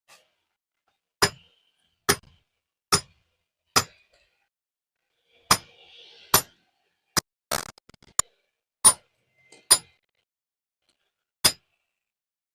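Hammer blows on steel in hand stone-splitting: about a dozen sharp, ringing metallic clinks, roughly one a second, with a brief pause about halfway through and a quicker pair just after.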